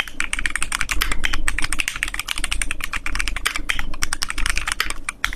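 Fast, continuous typing on a FirstBlood B67 gasket-mount mechanical keyboard with a transparent acrylic case and Kailh Ice Sea Spirit linear switches: a rapid, unbroken run of crisp keystroke clacks, many each second.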